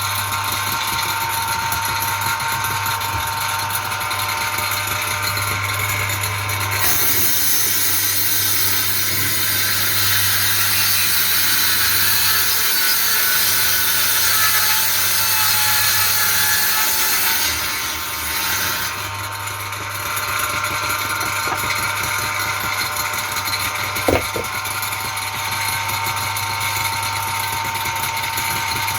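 Handheld electric circular saw mounted under a table as a saw bench, running steadily, then ripping through a board from about seven seconds in for some ten seconds, louder and harsher while the blade is in the wood, before running free again. A single sharp knock near the end.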